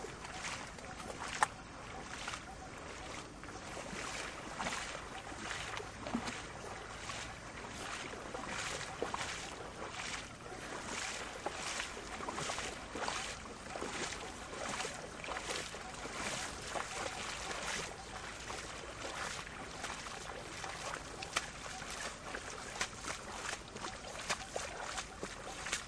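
Footsteps splashing through shallow water: a person wading at a steady walking pace, one splash every half second or so.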